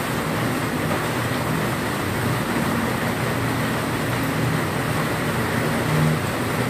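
Steady rumbling background noise, even throughout, with no distinct events.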